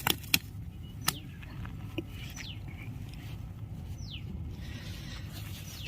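A few sharp clicks near the start, then two short, high, downward-sliding bird calls, over a steady low background rumble.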